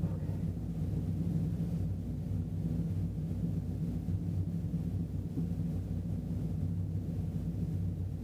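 A 2010 Chevrolet Camaro's engine idling steadily with the car standing still, heard from inside the cabin.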